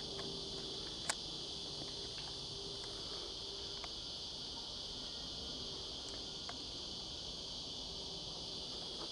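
Steady high-pitched chorus of insects, with a few faint clicks, the sharpest about a second in, as a lens hood is fitted to the camera lens.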